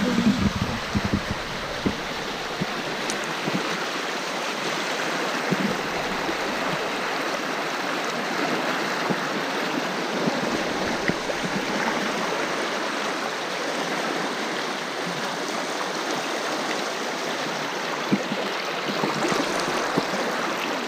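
Steady rushing of river water, with a few low knocks in the first two seconds.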